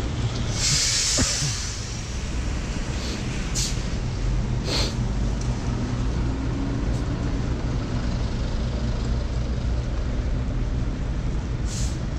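Rain falling on a clear umbrella overhead, over a steady low rumble of city traffic and bus engines on a wet street. About a second in there is a short loud hiss, and a few sharp ticks come later.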